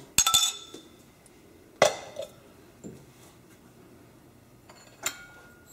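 A metal spoon clinking against a stainless steel pan and a glass bowl of ghee: a few separate sharp clinks, the loudest about two seconds in, some leaving a brief ringing.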